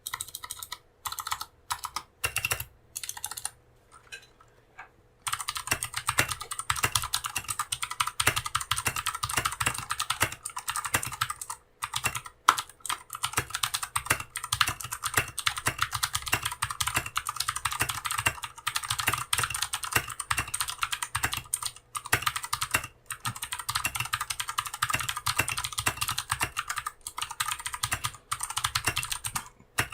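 Typing on an RK61 mechanical keyboard with its stock clicky blue switches, before any modding: a few separate keystrokes, then about five seconds in, fast continuous typing with sharp clicks.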